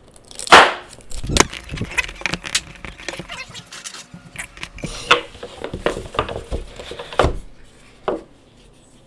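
Phone box packaging being opened by hand: a sharp noisy rip or crackle about half a second in as the seal is broken, then irregular rustling, clicks and taps of cardboard and plastic.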